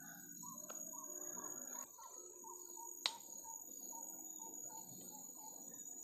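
Steady high-pitched drone of tropical forest insects, with a run of short calls repeated about three times a second underneath it. One sharp click sounds about three seconds in.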